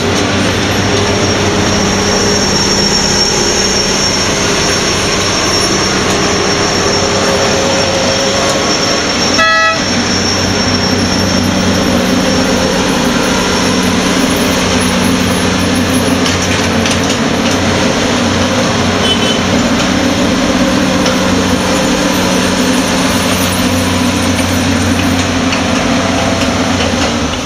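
Claas Lexion combine harvesters' diesel engines running steadily as the machines drive past on the road. A short horn toot sounds about ten seconds in.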